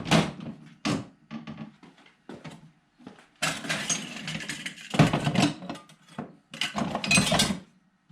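Irregular knocks and clatter of hand tools and metal parts being handled, with longer rattling or scraping stretches about halfway through and near the end.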